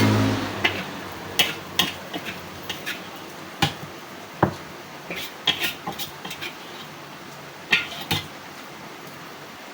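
Metal cookware and dishes knocking and clinking: about a dozen separate sharp clanks at irregular intervals, after a rushing noise cuts off just at the start.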